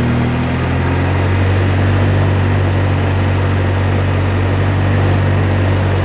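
ATV engine running steadily while riding, its note shifting slightly about a second in and then holding even.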